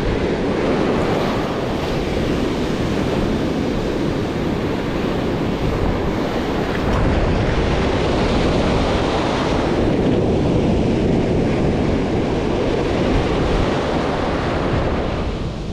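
Ocean surf breaking and washing up a sandy beach in the shallows, with wind rumbling on the microphone. The wash swells louder around the middle as a wave breaks close in.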